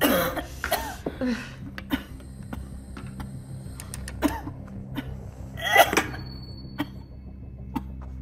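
A young person coughing, retching and gasping in a string of short bursts, loudest about six seconds in, then dying away; a low steady held tone runs underneath from about a second and a half in.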